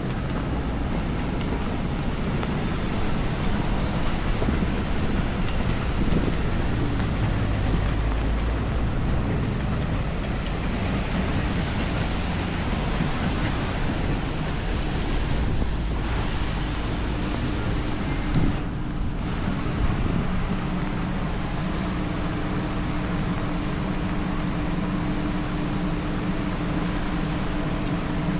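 Steady noise of a rainy city street: rain and traffic with low rumble, wind buffeting the microphone. A little past halfway, a steady low hum sets in.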